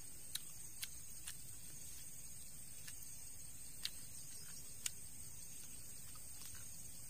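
A person chewing a grilled pork rib, with a few sharp wet lip-smack clicks, five of them, mostly in the first five seconds. Under them runs a steady high-pitched insect drone.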